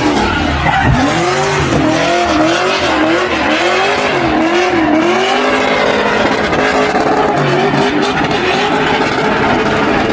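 Drift car engine revving up and down, its pitch rising and falling about twice a second for a few seconds, over the steady hiss and squeal of tyres spinning and skidding in a burnout.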